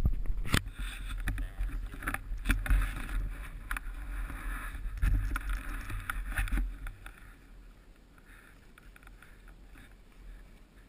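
Handling noise from a helmet-mounted action camera as the helmet is picked up and pulled on: muffled rubbing, knocks and a low rumble for about seven seconds, then only faint rustling.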